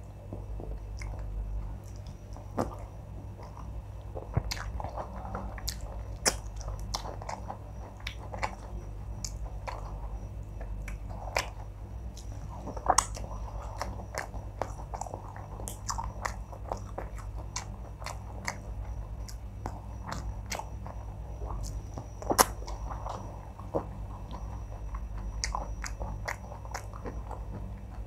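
Close-miked chewing and mouth sounds of a person eating wheat fufu with oha soup and fish: soft wet chewing broken by many sharp clicks and smacks, with fingers working the soft fufu and soup.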